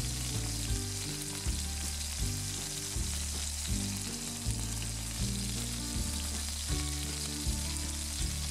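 Marinated chicken pieces sizzling in a hot grill pan: a steady frying hiss. Background music with low notes changing on a steady beat plays underneath.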